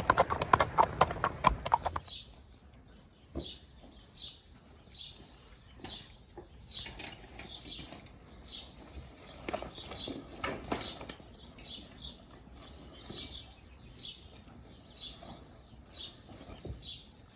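Horse's hooves clip-clopping in a steady rhythm on a paved road, cutting off about two seconds in. After that it is much quieter: small birds chirp over and over, with scattered clinks and knocks of a saddle being handled and set on the horse.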